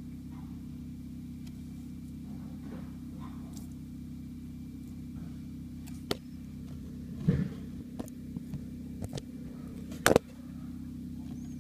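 Steady low hum with a scatter of sharp knocks and rustles in the second half, the loudest about ten seconds in. The knocks fit the filming phone being jostled while the feeding goes on.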